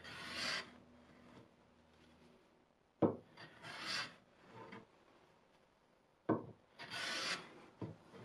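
Hand plane taking shavings off a wooden board in three strokes about three seconds apart, each a rasping hiss of about a second. The second and third strokes open with a sharp knock.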